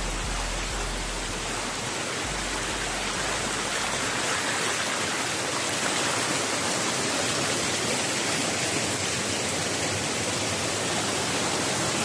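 Shallow rocky stream running and splashing over stones, a steady rushing of water.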